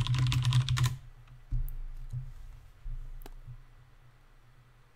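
Typing on a computer keyboard: a fast run of keystrokes in the first second, then a few single clicks, over a steady low hum.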